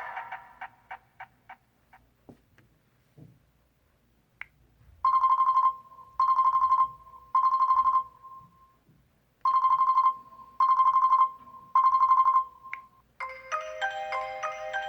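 LG Prada 3.0 phone ringtones. A fading string of short ticks dies away, then a buzzy ring sounds in two groups of three short bursts at one pitch. Near the end a new tone begins, a quick mallet-like melody.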